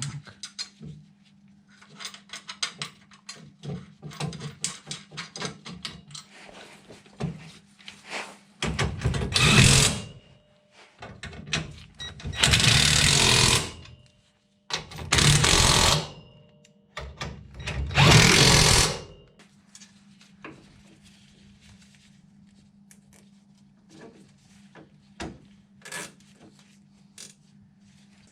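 Metal clinks of nuts and hand tools, then an impact wrench run in four bursts of one to two seconds, driving home the self-locking nuts that hold a new crossmember, followed by a few more clinks.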